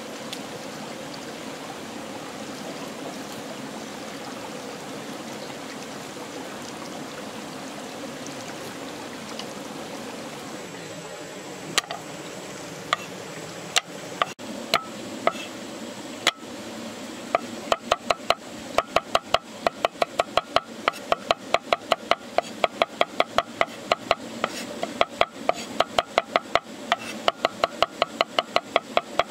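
Large kitchen knife chopping garlic on a thick end-grain wooden chopping board. A few scattered knocks come first, then from about halfway it turns into fast, even chopping. A stream runs steadily under it.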